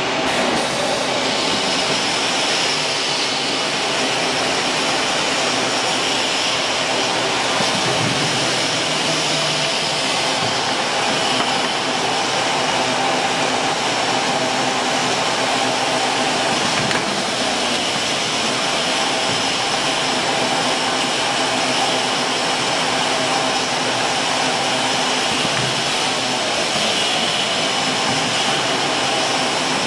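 Bubble-water filling and capping machine running: a steady mechanical whir with a few held tones.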